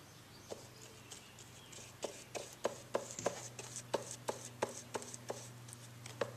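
Small paintbrush dabbing resin into fiberglass cloth held over a cardboard box: a run of light taps, about two or three a second, starting about two seconds in, over a steady low hum.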